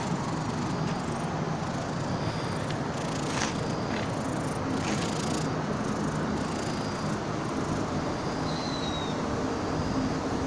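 Steady background rumble of road traffic, with a few faint clicks and a short high chirp near the end.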